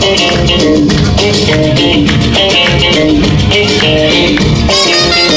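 Latin dance music with guitar and maracas over a steady beat.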